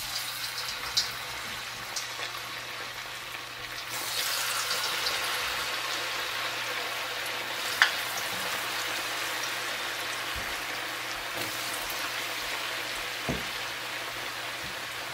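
Raw potato fries coated in corn flour sizzling and bubbling as they are dropped into hot oil in a wok to deep-fry. The sizzle gets louder about four seconds in as more fries go in, with one sharp tick near eight seconds.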